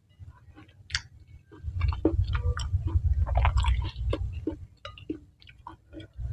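Close-miked chewing of spicy semi-wet Indonesian noodles (mie nyemek): irregular wet mouth smacks and clicks over a low rumble, sparse at first and dense from about two seconds in.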